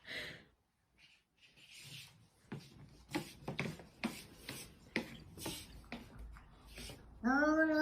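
Scratchy rubbing and clicking on a surface for several seconds. Near the end a kitten starts one long, even-pitched meow.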